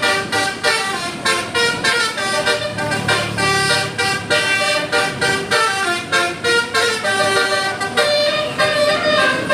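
Basuri telolet multi-tone air horn playing a melody as a rapid run of short, pulsing notes that step up and down in pitch.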